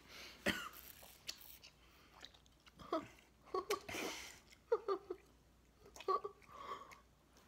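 Brief wordless vocal sounds and mouth noises, several short voiced sounds and breaths, from a person chewing a gummy candy with it on her tongue.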